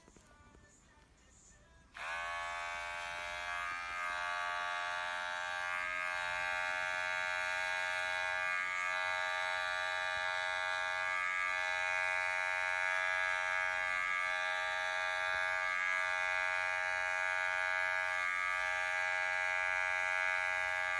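Electric pet hair clippers switching on about two seconds in, then buzzing steadily as they trim the fur on a cat's paw.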